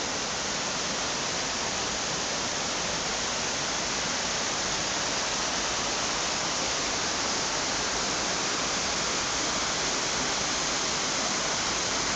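Small woodland brook rushing and splashing down a rocky bed: a steady, even hiss of running water.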